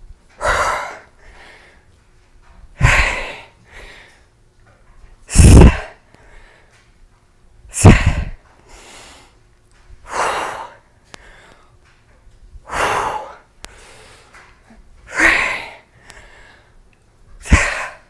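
A woman's hard, forceful exhalations, one with each barbell squat rep, about every two and a half seconds, eight in all, with quieter breaths in between.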